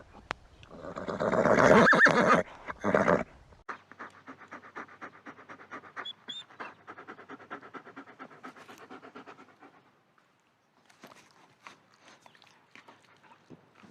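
An animal panting in quick, even breaths, after a loud breathy burst in the first few seconds; the breathing fades near the end.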